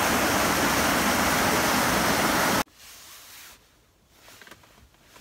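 Small waves washing over a rocky shoreline, a steady rushing noise that cuts off abruptly about halfway through. Quiet follows, with a few faint small sounds.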